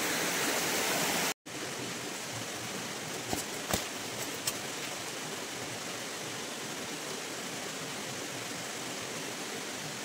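Steady rushing of a rocky mountain stream. It drops out for a moment about a second and a half in and comes back quieter, with a few faint clicks or knocks a little later.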